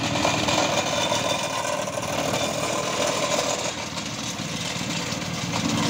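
Petrol-engined vibratory plate compactor running steadily with a fast, even pulsing as its plate vibrates over loose sand, compacting the ground flat.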